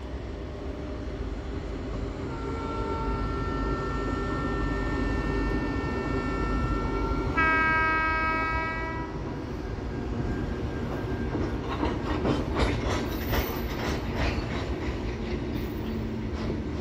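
WAG-12 electric freight locomotive sounding its horn as the train draws near: a long blast from about two seconds in, swelling into a louder, higher blast around the middle. Then goods wagons roll past with a rhythmic clickety-clack of wheels over rail joints.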